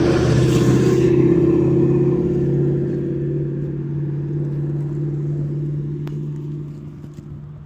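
A motor vehicle's engine running close by, loudest in the first two seconds with a rush of noise over it, then running steadily and slowly fading.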